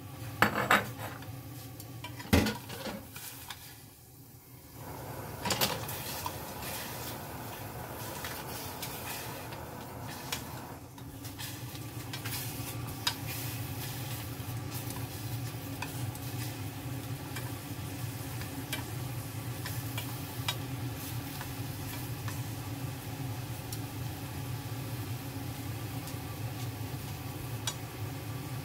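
A few sharp clatters of a pot and utensils in the first six seconds, then a pot simmering steadily on the stove, with occasional light clinks of a utensil against it.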